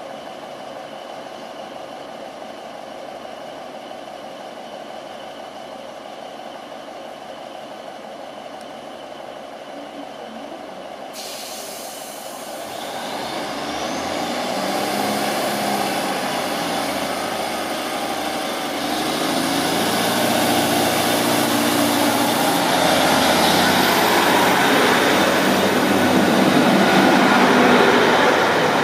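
Northern Class 156 Super Sprinter diesel multiple unit idling at the platform with a steady engine note, then a sudden hiss about eleven seconds in and a rising whine as it pulls away, its engines and wheels growing steadily louder as it gathers speed.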